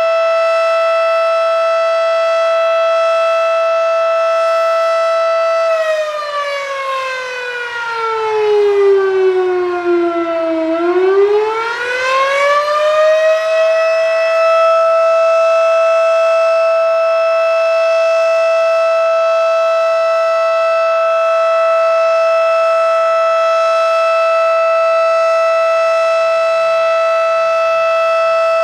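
Federal Signal Model 5 mechanical outdoor warning siren sounding a steady tone. About six seconds in, its pitch sags to roughly half over some five seconds, then climbs back up to the steady tone and holds there.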